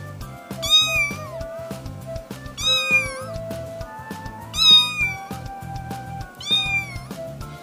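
Young kitten meowing four times, about every two seconds, each cry high-pitched and falling away at the end, over background music with a steady beat.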